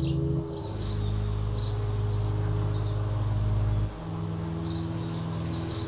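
A low sustained drone of held notes that changes abruptly about half a second in and again near four seconds, with short high chirps repeating irregularly over it, pausing for a couple of seconds in the middle.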